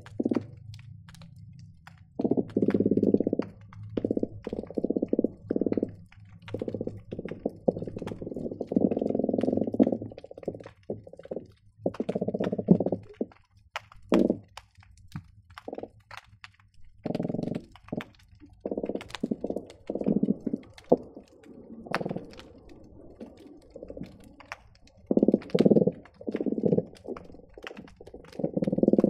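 Croakers calling underwater, picked up by hydrophone: repeated bursts of low, rapid drumming pulses, some short and some a second or two long, coming in clusters with brief gaps. Scattered sharp clicks and pops run under them.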